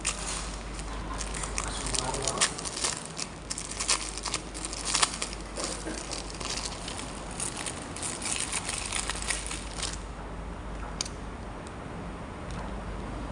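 Plastic packaging crinkling and rustling as it is handled, a string of short crackles that thins out after about ten seconds to a few scattered clicks.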